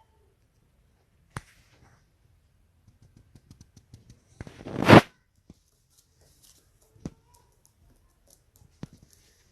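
Pigeon's wings flapping: a run of quick ticks builds into a short, loud flutter about halfway through, with a few single clicks before and after.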